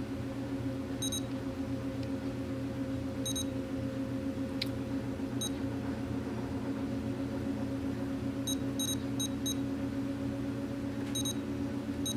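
Futaba 14SG radio transmitter beeping briefly at each key press while its menus are scrolled: single short high beeps a couple of seconds apart, then a quick run of about five, over a steady low hum.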